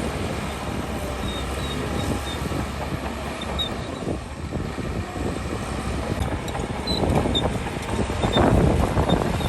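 Heavy diesel earthmoving machinery running steadily, growing louder near the end.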